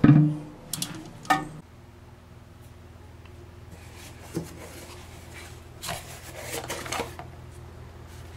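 Cardboard box and the plastic parts of a new toilet fill valve being handled: a few sharp clicks in the first second and a half, then scattered light knocks and rustles, busiest near the end, over a steady low hum.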